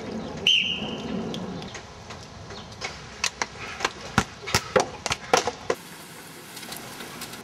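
A short high blast on a lifeguard's whistle about half a second in, then about ten sharp smacks in quick, irregular succession.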